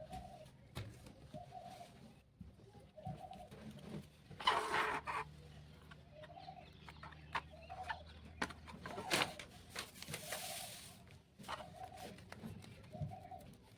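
A pigeon cooing repeatedly in the background, with short low calls every second or so. Handling noises over it: scattered clicks and a louder rustle about four seconds in and again near nine seconds.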